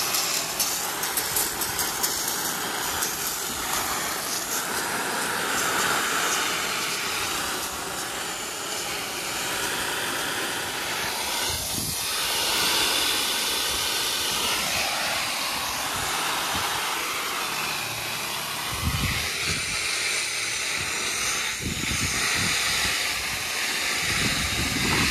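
Garden hose spray nozzle spraying water onto a tent's flysheet: a steady, loud hiss of spray hitting the fabric, simulating rain.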